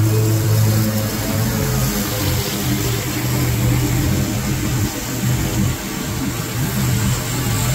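Husqvarna Z454XS zero-turn mower's engine running steadily under load with the blades engaged, cutting thick, tall grass: a steady low hum that dips slightly about five seconds in.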